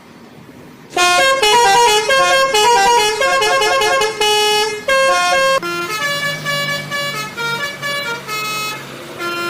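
Bus telolet horn, a set of multi-trumpet air horns, playing a quick tune of short changing notes starting about a second in. From about six seconds it switches to longer held chords that pulse on and off.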